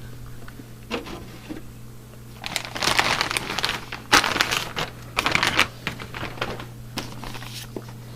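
Plastic packaging crinkling and rustling in several bursts as kit parts are handled, with a few sharp clicks. A steady low electrical hum runs underneath.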